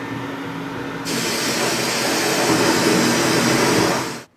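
Abrasive blast cabinet in use on a snowmobile clutch part: a steady hum, then about a second in the blast gun opens up with a loud hiss of air and grit. The noise cuts off suddenly near the end.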